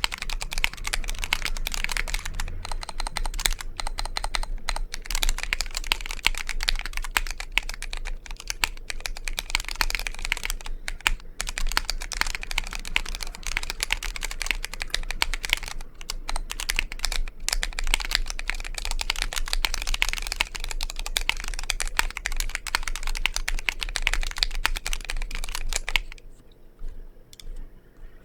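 Continuous fast typing on a Vortex POK3R 60% mechanical keyboard with Cherry MX RGB Red linear switches: a dense clatter of keystrokes that thins to a few scattered presses near the end.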